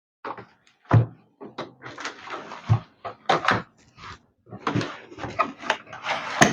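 Unboxed vacuum cleaner accessories being handled: hard plastic parts knocking together and packaging rustling. There are sharp knocks about one second in and again near three seconds, then longer stretches of crinkling and clatter.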